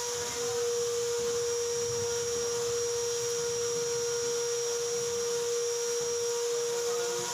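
Steady machine whine at one constant pitch over a hiss, unchanging throughout.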